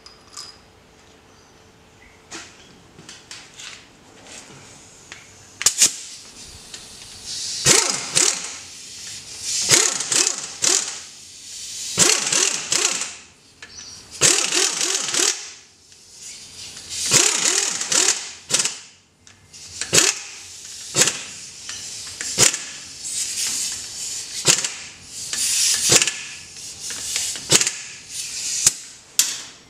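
Air-powered wrench running in short bursts, about a dozen with pauses between, spinning in and snugging up the drive flange bolts on a front wheel hub. It starts after a few quiet seconds with a few light clicks.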